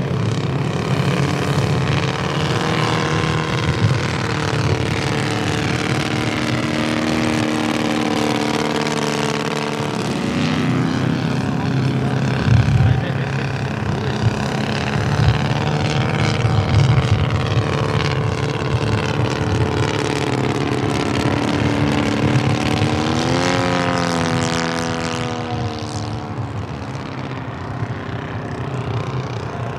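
Combustion engine of a scale RC Fokker D.V biplane running in flight, a steady buzz whose pitch slides slowly up and down, with a quick rise and fall about three-quarters of the way through.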